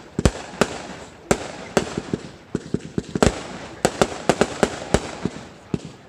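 Fireworks going off in a continuous barrage: irregular sharp bangs, two or three a second, over a steady crackle.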